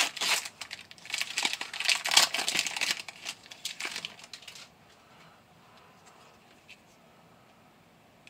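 Foil booster pack wrapper of a Pokémon trading card pack being torn open and crinkled, a dense crackling for the first four and a half seconds or so, then only faint handling of the cards.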